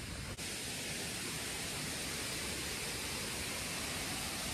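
Steady rushing of water in a nearby forest stream, an even hiss with no break except a momentary dropout about half a second in.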